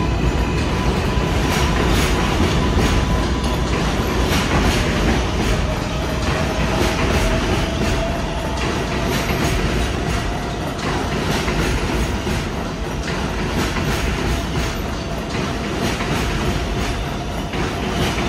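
R188 subway train running past, its wheels clacking over rail joints. A steady whine comes in about five seconds in and holds.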